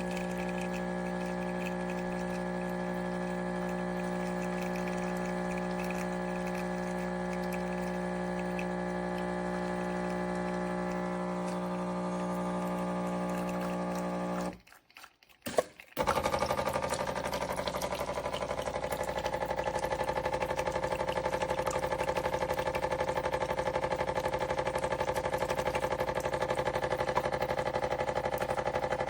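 An espresso machine running with a steady buzzing hum, typical of its pump working. About halfway through it cuts off, there is a click, and a different steady machine hum starts up.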